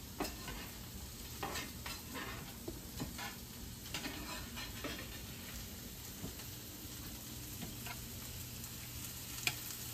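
Diced potatoes, radishes and onions sizzling as they fry in bacon grease in a skillet, while a wooden spoon stirs them, scraping and knocking against the pan at irregular moments.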